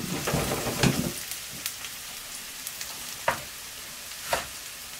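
Chopped onions sizzling in hot oil in a frying pan, a steady hiss broken by a few sharp pops.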